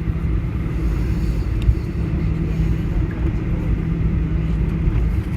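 Steady low cabin rumble of a Boeing 737-900ER rolling on the ground after landing, with a constant engine hum underneath. A single short knock sounds about two seconds in.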